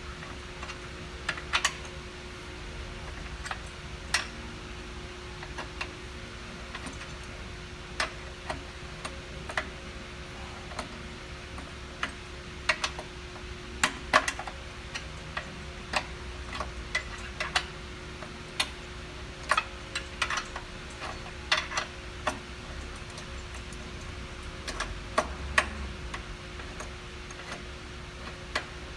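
Irregular light clicks and taps, as of small metal tools and parts being handled during repair work, over a steady faint hum.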